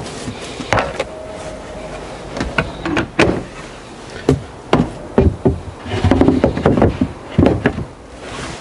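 Plywood storage-compartment lids and floor panels being handled and set into place, giving a series of irregular wooden knocks and taps, about a dozen in all.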